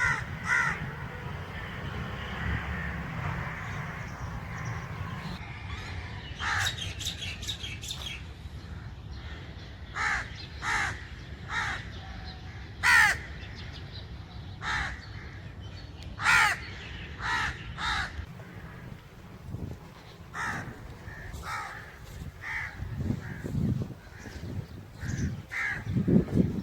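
Crows cawing: many short, harsh caws at irregular intervals, some in quick runs of two or three, over a low background rumble.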